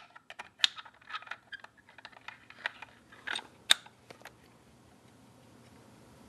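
Allen wrenches being handled while the right size is picked out and tried: a string of irregular small clicks and taps that stops about four seconds in.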